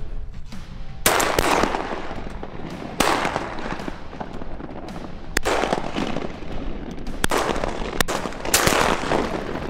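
A volley of shotgun blasts, about six shots in under eight seconds, each trailing off in a short echo, over background music.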